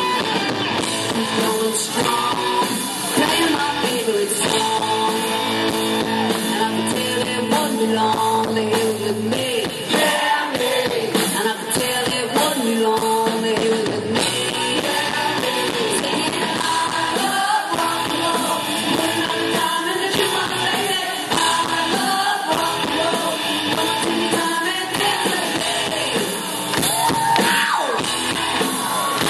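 A rock band playing live: electric guitars and a drum kit, with a woman singing lead vocals.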